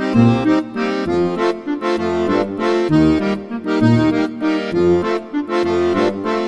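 Background music: a lively tune of held chords over a regular bass beat.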